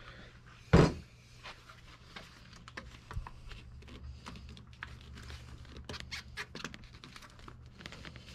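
Rubber motorcycle hand grip, its inside wet with Windex, being pushed and twisted onto a mini bike's handlebar: a run of small squeaks, clicks and rubbing. One short, loud burst of noise about a second in.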